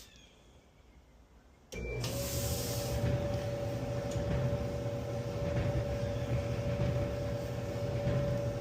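Kenmore Elite clothes dryer started with a click and a short beep a little under two seconds in, then its motor and drum running with a steady hum, on test after a new idler pulley was fitted to cure a loud noise.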